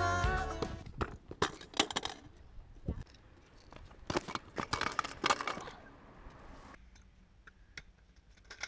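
Stunt scooter clattering on paving: scattered sharp knocks and metallic clinks of the deck, wheels and bars striking the ground, with a quick run of them between about four and five and a half seconds in.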